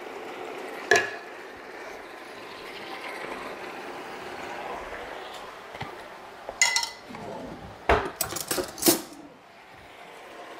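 Noodles and vegetables sizzling steadily in a wok while a spatula stirs them, with one sharp knock of the spatula against the pan about a second in. In the second half the sizzle fades and a run of sharp clinks and knocks follows as utensils and a jar are handled.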